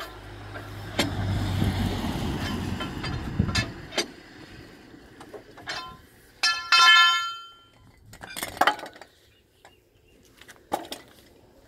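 Clicks and clanks of a long steel bar working a hydraulic bottle jack under a heavy truck, with one loud ringing metallic clang about six and a half seconds in that fades over about a second. A vehicle's low rumble fades out over the first few seconds.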